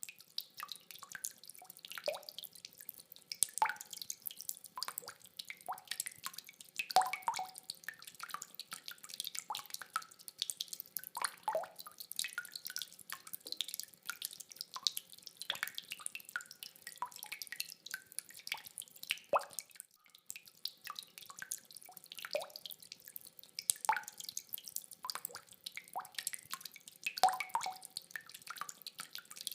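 Rainwater dripping: irregular, closely spaced drops plinking and tapping, a few louder ones standing out, over a faint patter of rain. No thunder.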